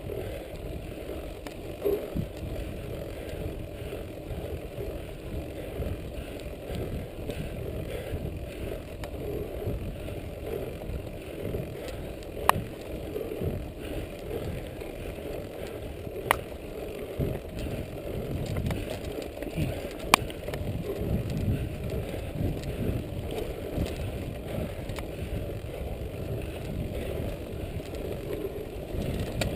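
Mountain bike rolling along a dirt trail: a steady rumble of tyres on the ground and the bike rattling, broken by a few sharp clicks, three of them in the middle.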